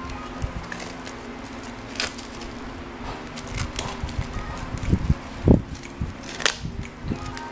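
Cellophane wrap crinkling as it is peeled off a paperback book, with a few sharp crackles, loudest about two seconds in and near the end, and soft handling thumps in between.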